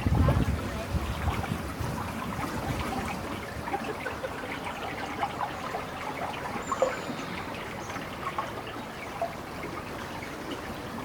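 Water trickling and splashing in a steady, busy patter, with a brief low rumble in the first second.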